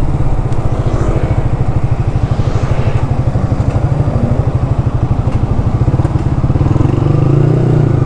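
Yamaha R15's single-cylinder engine running as the motorcycle is ridden along a street, a steady, fast, even pulsing throb.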